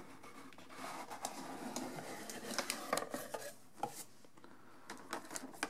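Cardboard box being opened by hand: rubbing and scraping of the box lid and flaps for about three seconds, then a few light taps and clicks near the end as the packed contents are handled.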